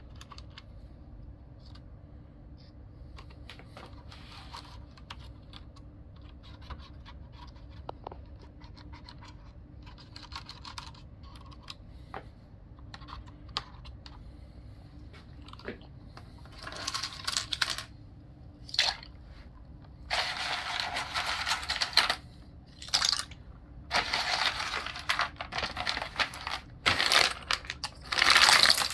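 Light plastic clicks and rattles of mechanical keyboard parts being handled. From about halfway on come repeated hissing blasts of compressed air, each a second or two long, blowing dust out of the keyboard.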